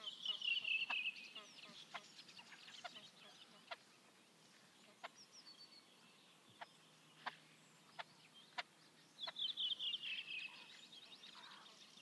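Great crested grebe chick begging: two rapid runs of high, thin piping notes that fall slightly in pitch, each about a second and a half long, one at the start and one about nine seconds in. Single short high peeps come between them.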